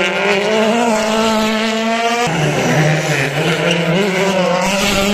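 WRC rally car engine at high revs; the revs drop sharply about two seconds in, then climb steadily again as the car accelerates.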